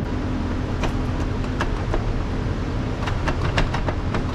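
Hand tools clicking and clinking against metal, a handful of sharp taps scattered through the first half and a quicker run of them near the end, over a steady low hum.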